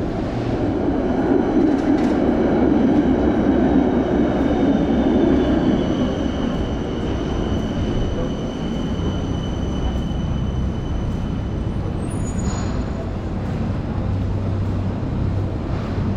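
Train running past: a rumbling noise that is loudest in the first few seconds and then eases off, with a thin high whine through the middle.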